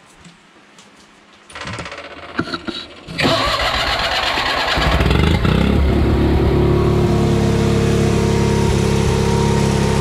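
Case 1816C skid steer's engine being started: the starter cranks for about a second and a half, the engine catches a little over three seconds in and settles into a steady idle.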